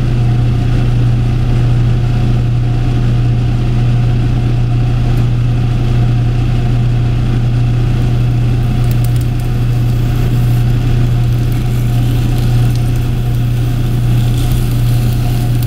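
Wave solder machine running, its pump driving the molten solder wave: a steady, loud low hum.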